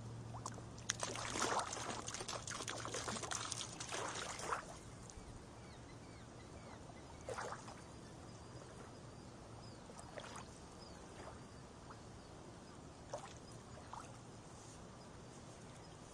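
Small waves lapping onto a pebble shore. A run of splashing and trickling over the stones comes a second or so in and lasts about three seconds, then softer single laps follow every few seconds.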